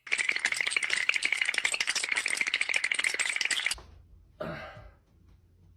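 A rapid, dense rattling for about three and a half seconds that stops abruptly, followed by a brief rustle.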